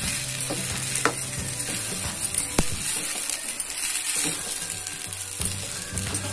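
A steel spoon stirring and scraping thick rice-rava upma in a pan on a lit stove, with a steady sizzle and a few sharp clicks of the spoon against the pan. Faint background music with low sustained notes runs underneath.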